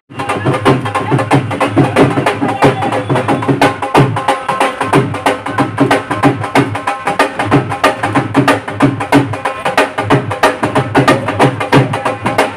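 Lively desi dance music driven by a fast, steady dhol beat, with a melody running over the drumming.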